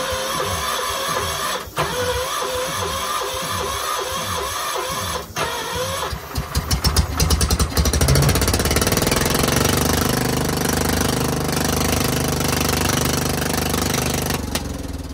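Kohler K241S single-cylinder engine on a gas-powered air compressor cranked by its electric starter, with two short breaks in the cranking, then sputtering and catching about six to eight seconds in and running steadily: its first start after its ignition points were cleaned and gapped to cure a no-spark fault. It is switched off with the kill switch near the end and winds down.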